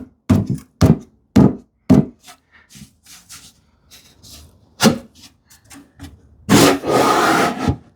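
Hand strokes abrading the edge of a plywood drawer bottom to ease its fit in the drawer grooves: four quick rubbing strokes at about two a second, softer rustling, one more stroke, then one long, loud scraping stroke near the end.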